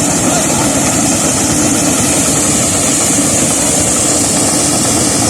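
Engine-driven corn sheller running steadily at full din, a continuous engine drone mixed with a hissing rattle of the machine at work.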